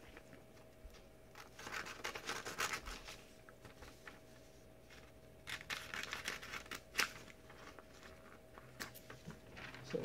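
A sheet of paper being cut down to a small piece, heard as two bouts of faint crisp snipping and crackling with a sharper click about seven seconds in.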